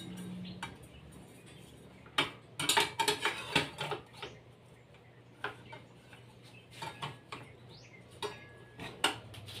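Hand-held circular saw being handled and adjusted while switched off: a cluster of sharp plastic-and-metal clicks and knocks about two seconds in, then single clicks every second or two.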